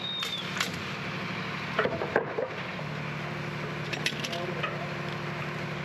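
Knocks of wooden lumber being handled and set on the roof framing, a cluster of them loudest about two seconds in and a few lighter ones later, over a machine engine running steadily, with faint voices.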